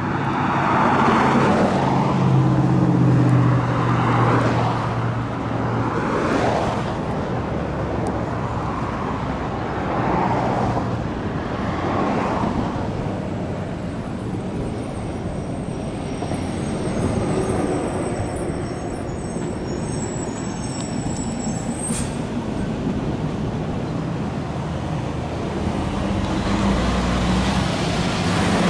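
Road traffic going by: cars passing one after another, each swelling and fading. A low engine hum underlies the first few seconds.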